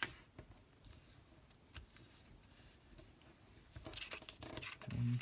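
A sheet of paper being handled and folded by hand: light rustling and the soft clicks of creases being pressed, busier about four seconds in. A short low hum is heard near the end.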